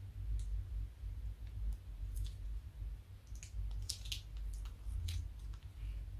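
Slime being squeezed out of a plastic piping bag into a bowl of soft slime: scattered small wet clicks and pops, thickest about four seconds in, over a low steady rumble.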